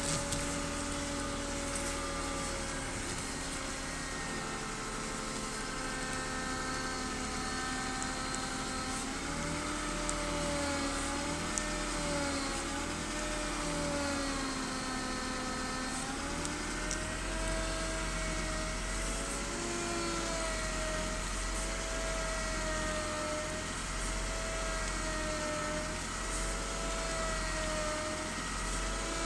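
Power steering pump on a BMW E36 320i whining with the engine running, the whine wavering up and down in pitch. It is a new MAPCO pump that still whines after several fluid changes, and the whine increases during steering.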